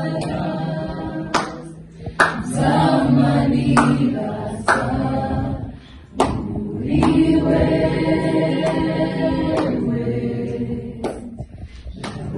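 A choir singing a worship song in phrases, with a few sharp percussive hits between them.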